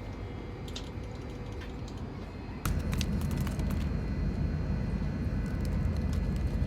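Low, steady vehicle rumble with scattered small clicks, suddenly louder about two and a half seconds in.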